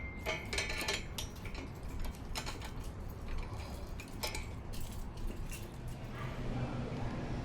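Light metallic clinking and rattling, several irregular clinks a second, like loose metal parts or a lock knocking together. About six seconds in, a vehicle's engine hum comes up underneath.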